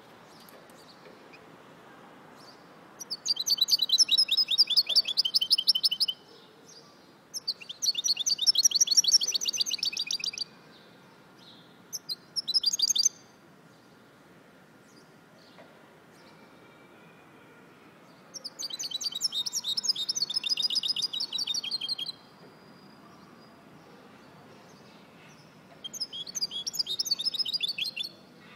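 A goldfinch mule, a goldfinch × canary hybrid, singing in five phrases of rapid twittering, trilled notes, each a few seconds long and one much shorter, with pauses between.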